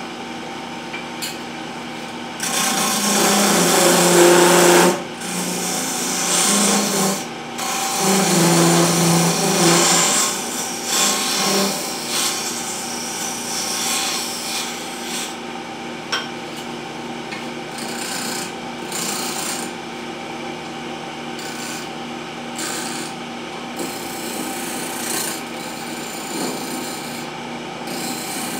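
Wood lathe running while a turning chisel cuts a spinning wooden spindle, the shavings scraping off over the steady hum of the motor. Two heavier stretches of cutting come in the first ten seconds, then lighter, even passes.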